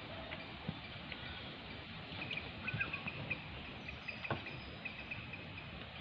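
Quiet outdoor ambience with a rapid run of short, high chirps from about two to five seconds in, and a couple of faint knocks.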